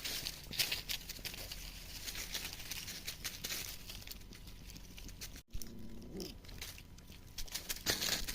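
Crackling, rustling noise of movement through dry leaves or brush, with a short faint rising whimper from a puppy about six seconds in.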